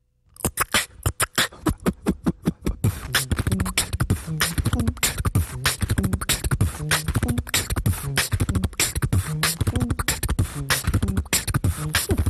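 Soundtrack music built on a fast, dense percussive beat with a stepping bass line, starting suddenly about a third of a second in. The hits are sparse at first and fill out into a continuous beat after about three seconds.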